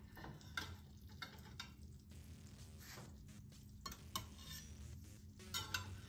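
Metal serving utensils clinking and scraping against a baking dish and a pan as baked squash is lifted out to serve: a scattering of light, irregular clicks and scrapes.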